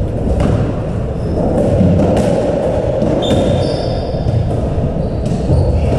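Squash rally: the ball knocked by rackets and off the court walls, a handful of sharp, irregularly spaced hits, with brief shoe squeaks on the wooden floor about three seconds in and a steady hall hum underneath.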